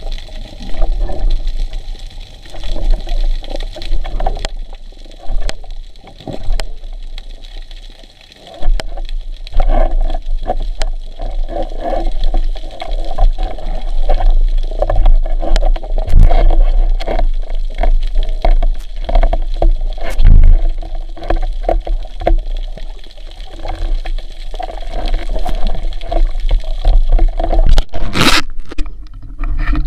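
Water rushing and sloshing close around the microphone, over a deep rumble, with many scattered sharp clicks and scrapes and a brief louder splash-like burst near the end.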